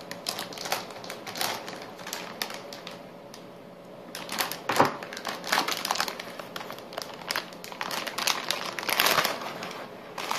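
Crinkling and rustling of a metallised anti-static bag holding a graphics card as it is handled and lifted out of its cardboard box, with a sharp knock about halfway through.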